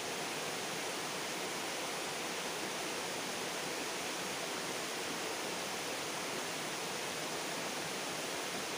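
Steady rushing of flowing stream water, an even hiss with no breaks.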